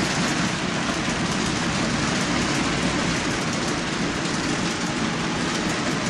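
HO-scale model train of 40-foot ice-bunker reefer cars rolling past on the layout track: a steady rolling noise of the wheels on the rails.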